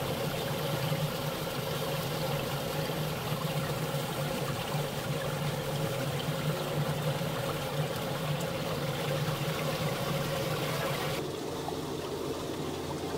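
Shallow stream flowing and trickling over rounded stones, a steady rush of water. Near the end it turns softer and duller.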